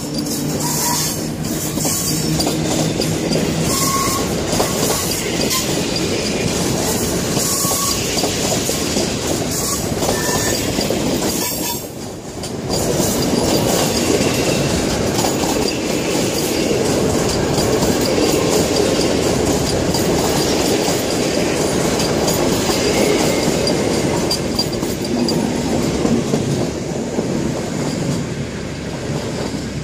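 PKP Intercity passenger coaches of a departing train rolling past at close range, their wheels clattering over the rail joints, with a few short, faint wheel squeals. The sound dips briefly about twelve seconds in and eases slightly near the end as the last coach pulls away.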